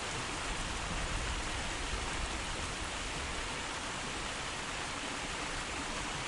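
Small stream flowing: a steady, even rush of running water.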